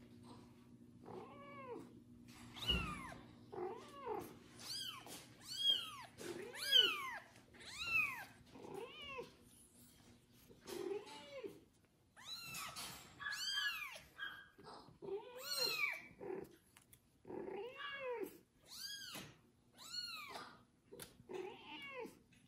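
Young kitten meowing loudly over and over, about one to two short calls a second, each rising then falling in pitch. The owner takes the crying for a plea for a mother's warmth and affection, not hunger.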